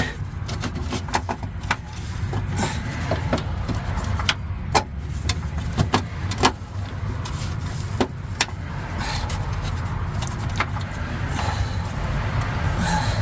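Irregular sharp clicks and knocks, as of hand tools and parts being handled on a car, over a steady low rumble.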